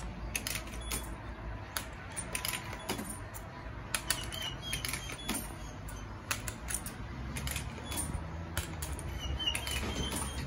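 Irregular light clicks and taps, a few to several a second, over a steady low hum, with a few short high chirps in the second half.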